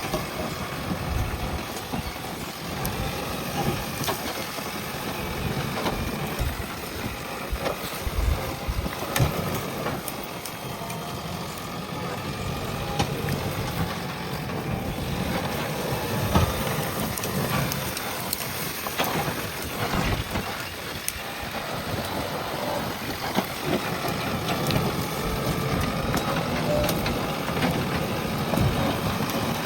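JCB backhoe loader's diesel engine running steadily under work, with scattered sharp knocks and cracks as the machine works the ground and brush.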